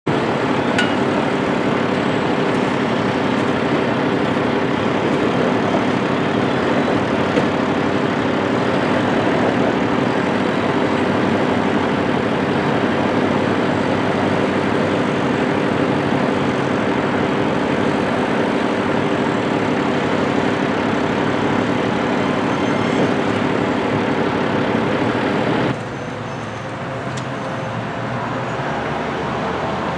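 A John Deere 210K tractor loader's diesel engine runs with a steady note while the machine works. Near the end the sound drops abruptly to a lower level.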